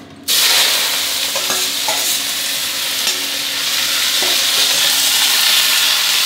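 Wet water spinach hitting smoking-hot oil in a stainless steel wok: a loud sizzle that starts suddenly a moment in and holds steady, with a few light scrapes of the metal spatula as the greens are stirred.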